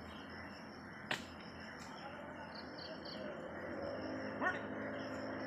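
Faint outdoor ambience of insects chirping steadily, with a sharp click about a second in and a brief rising chirp near the end.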